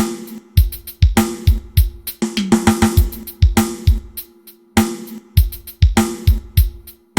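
Drum kit played through a PA sound system for a soundcheck: a steady beat of kick drum, snare and hi-hat. The snare rings on with a held tone after each hit, and a quick fill of lower-pitched drum hits comes about two and a half seconds in.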